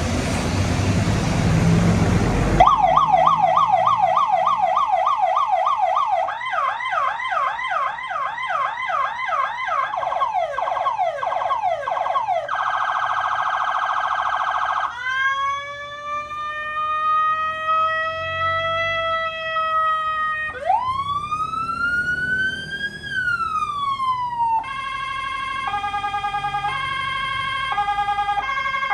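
Electronic emergency-vehicle siren run through its tone modes. After a short burst of noise, it plays a fast yelp, quicker sweeping tones, a rapid warble, a slow rising and falling wail, and a single rise-and-fall. It ends on an alternating two-note hi-lo.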